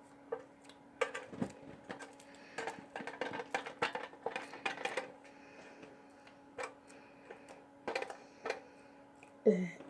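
Sticky slime being squeezed and pulled apart by hand, giving irregular small clicks and crackles.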